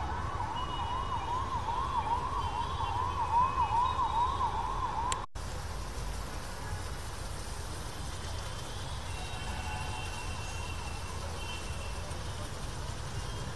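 Electronic siren in a fast yelp, its pitch warbling up and down a few times a second. It breaks off about five seconds in and comes back fainter later, over a steady low rumble.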